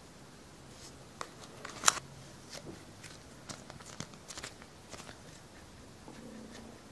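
Hands handling Play-Doh and its small plastic tubs: scattered quiet clicks and taps, the sharpest about two seconds in, as the clay is pulled out and pressed flat.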